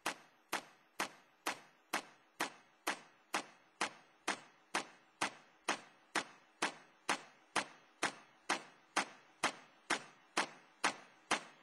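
Sharp, evenly spaced ticks, a little over two a second, each fading quickly, like a clock or metronome tick.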